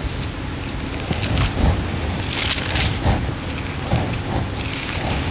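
Paper rustling as Bible pages are turned at a pulpit microphone: irregular crackling swishes, the loudest about two and a half seconds in and more near the end.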